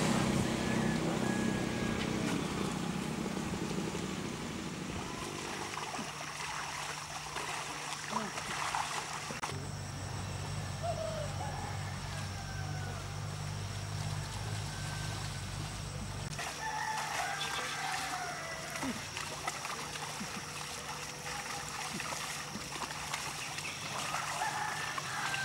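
Outdoor rural ambience: a rooster crows a few times, short falling calls, over a steady low hum and a thin, steady high tone.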